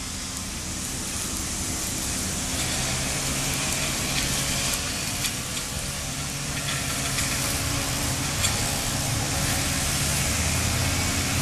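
Steady low hum under an even hiss, with a few faint clicks.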